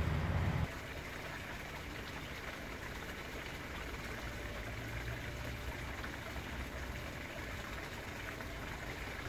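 A loud low rumble cuts off abruptly under a second in. It gives way to a steady, even rushing noise with no distinct events.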